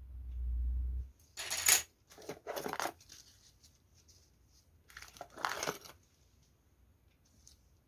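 Packaging being handled and opened: a low handling rumble at first, then three short bursts of crinkling and rustling.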